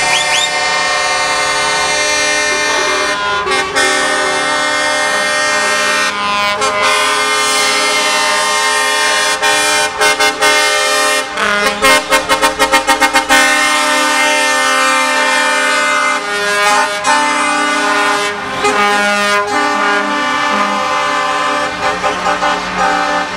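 Truck air horns sounding almost without a break, several horn tones at once, with a rapid string of short blasts about twelve seconds in.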